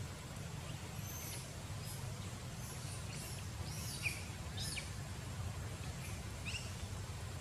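Small birds chirping: about six quick, high, sweeping chirps scattered over several seconds, over a steady low rumble.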